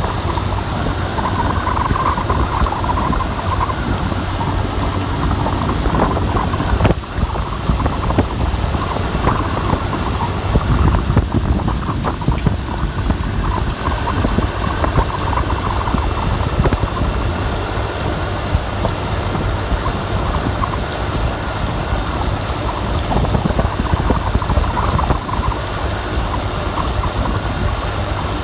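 Wind-and-rain ambience: a steady deep rumble of wind with gusts that swell and ease every few seconds over a constant hiss.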